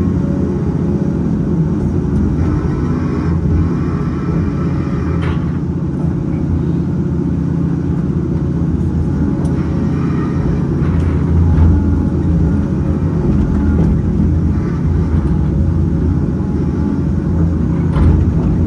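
Cat 568 log loader's diesel engine running steadily under hydraulic load as the grapple swings and sets pulp logs onto a log truck, with a few sharp knocks of logs landing, one about five seconds in and one near the end.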